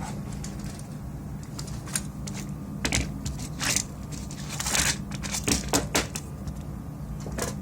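Irregular clicks and knocks of small hard parts being handled during the repair of a PS4 Slim power supply, about eight of them with a longer scrape-like rustle near the middle, over a steady low hum.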